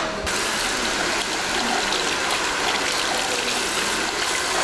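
Water spraying from a salon shampoo-basin hand sprayer onto hair: a steady hiss that starts abruptly a moment in and holds even throughout.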